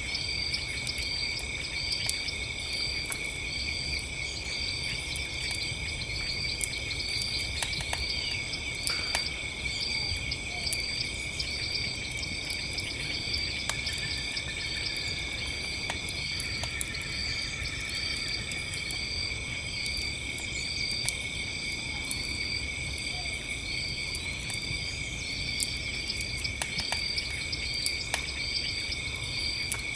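Crickets chirping in a steady night chorus, one of them in evenly repeated chirps, over the scattered snaps and pops of a crackling campfire and a low rumble.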